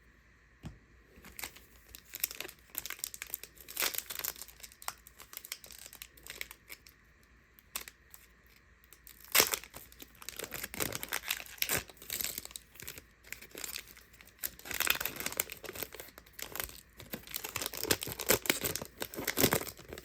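Foil trading-card pack wrappers crinkling and tearing as packs are ripped open, in irregular crackly bursts that get busier and louder in the second half.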